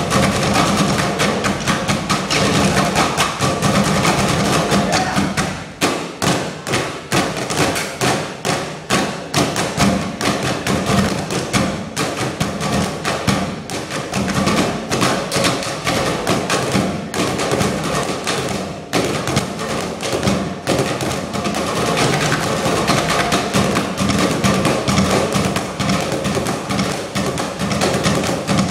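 Percussion ensemble drumming on plastic and metal trash cans: a dense, continuous rhythm of hits, several players at once.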